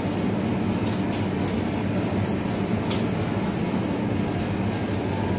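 Steady low hum of a supermarket's refrigerated display cases and ventilation, with a few faint clicks.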